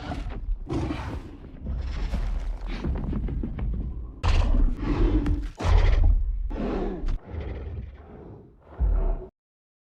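Designed King Kong roar sound effect in the Monsterverse style: a series of deep growls and roars of uneven length, heavy in the low rumble, cutting off suddenly about nine seconds in.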